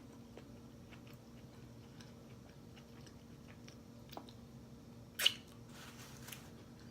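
Close-miked chewing of a burger, with small wet mouth clicks and one louder, sharp mouth sound about five seconds in, over a faint steady hum.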